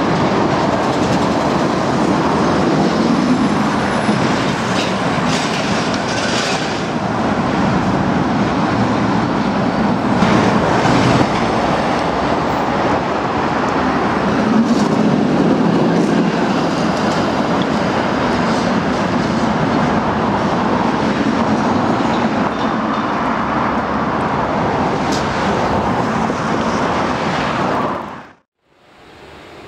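Tram running on rails: a steady rumble of wheels with scattered clicks over rail joints, cutting off suddenly near the end.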